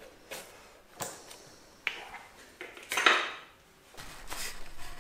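Metal clicks and clinks of a hand tool and bolts at the handlebar clamp as a dirt bike's hand guards are unbolted, about five in the first three seconds, the loudest around three seconds in. Near the end, a cloth rubbing over the textured seat cover.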